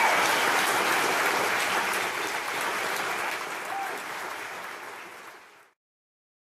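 Theatre audience applauding, the clapping steadily dying away over about five seconds and then cutting off abruptly.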